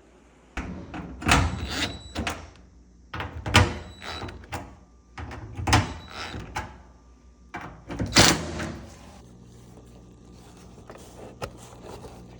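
Sheet-metal dryer cabinet panels being handled and fitted back into place, with four loud clunks a couple of seconds apart and lighter rattles between, settling quieter near the end.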